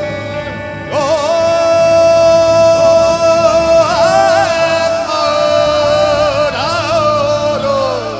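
Live band music: a long held, wavering lead melody line enters about a second in over a steady sustained backing, with ornamental pitch bends and a downward slide near the end.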